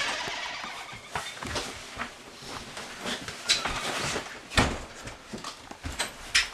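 Gear and clothing being handled: irregular rustling with scattered clicks and knocks, and a louder thump about four and a half seconds in.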